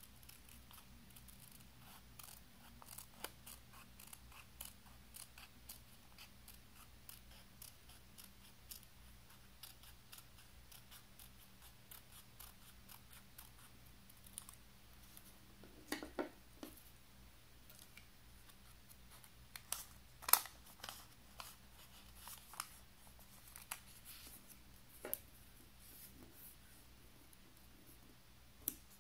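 Small scissors with steel blades snipping through folded paper in a faint run of short cuts, following a curve. A few snips are louder, about halfway through and again later on.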